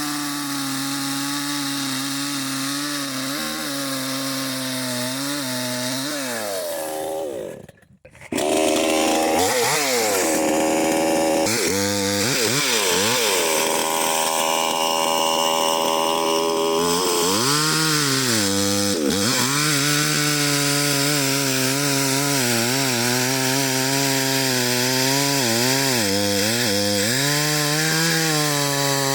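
Chainsaw cutting into the trunk of a dead ash tree, its engine pitch dipping and recovering again and again as the chain bogs down in the wood. The sound briefly drops out about eight seconds in and comes back louder.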